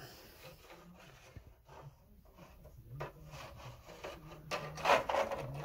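Faint rubbing and scraping handling noises against the model's wing, with a short, louder rub near the end.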